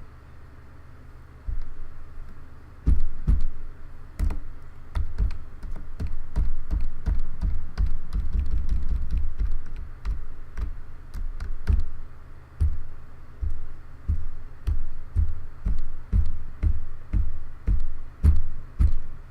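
Keys of a Logitech K360 keyboard being pressed over and over, clacking down: a couple of single presses, then steady pressing at about two to three a second from about three seconds in. This is testing and working keys that had been sticking, after cleaning with isopropyl alcohol.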